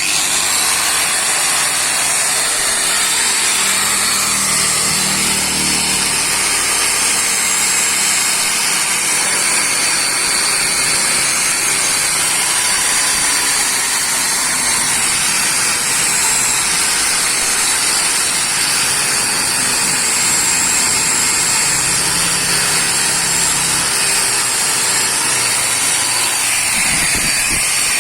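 Angle grinder fitted with a wire brush wheel running steadily against a metal motorcycle engine case, scrubbing the old paint off in one continuous high hissing scrape.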